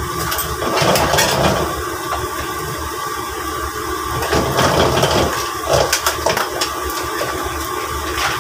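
Crab being stir-fried in a wok on a gas stove: a steady roar under the scrape and clatter of a ladle against the wok, with a few sharper knocks.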